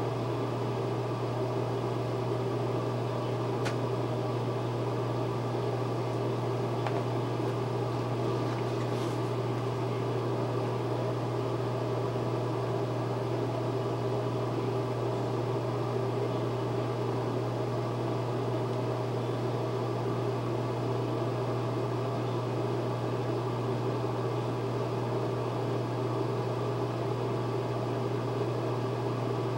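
Steady mechanical hum, like a fan or motor running without change, with a few faint clicks in the first ten seconds.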